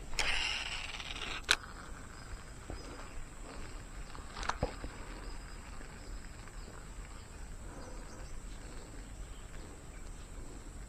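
Faint outdoor ambience with a steady high-pitched insect drone, like crickets. A short hiss fades out in the first second and a half, and two sharp clicks come about 1.5 and 4.5 seconds in.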